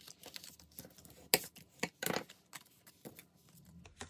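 Cardstock being folded and handled on a table: scattered crisp clicks and short paper rustles, the sharpest about a second and a half in and a quick cluster around two seconds.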